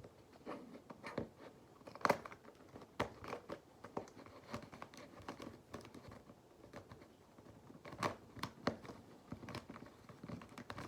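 Plastic Redi Cube twisty puzzle being turned in the hands, its corners clicking and clacking irregularly as the pieces are cycled.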